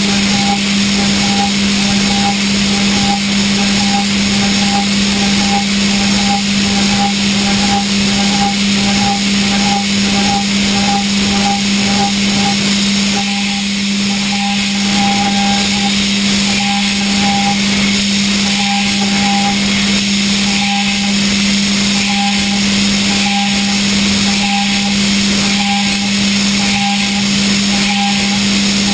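Okuma GENOS M560V vertical machining center finish hard milling D2 tool steel at 62 Rc: a steady spindle hum under a constant hiss, with a higher tone that pulses on and off about once a second as the cutter works the part.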